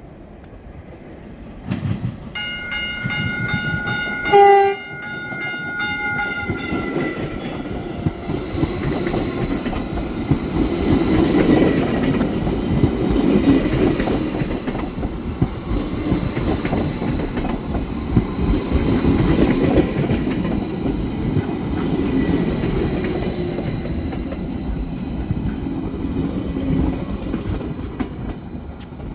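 Caltrain Stadler KISS electric train sounding its horn in one long chord for about five seconds, with a sharp loud bang about four and a half seconds in. The train then rolls past with a rumble and wheel clatter over the rail joints and a thin steady high whine, growing louder and then slowly fading.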